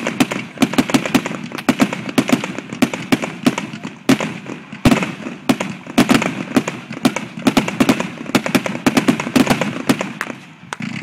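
A ground firework shooting a column of sparks, crackling with rapid sharp pops, several a second over a steady hiss. It dies away shortly before the end.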